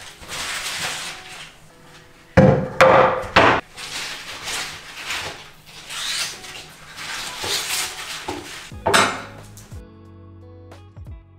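Rustling of tulip stems and leaves handled on a wooden cutting board, with three sharp knocks on the wood a little over two seconds in, the loudest sounds here. Guitar music comes in near the end.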